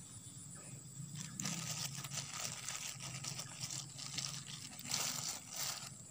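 Thin plastic bag crinkling and rustling in irregular bursts as a hand moves the fish inside it, loudest about five seconds in.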